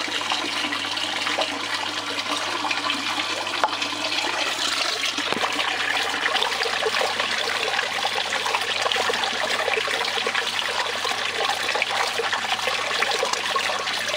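Water running steadily across the mat of a DIY miller table, a gold-concentrate cleaning table.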